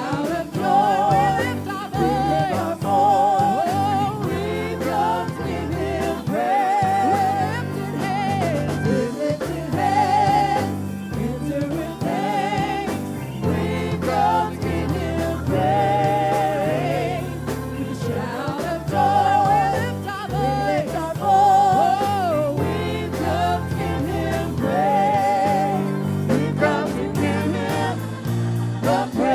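Gospel worship music: voices singing long, wavering notes with vibrato over a steady low accompaniment.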